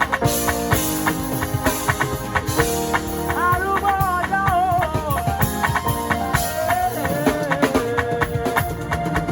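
A live band playing, with a drum kit keeping a steady beat under sustained chords. A melody line bending in pitch comes in about three seconds in and again near the end.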